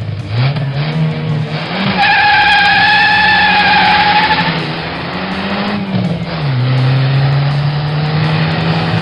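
Car engine sound effect revving up and down through several rising pitches, then holding a steady note. A tyre squeal runs from about two seconds in for two and a half seconds.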